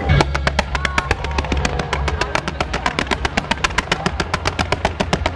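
Fireworks going off in a rapid, even string of sharp cracks, about eight a second, starting just after the start.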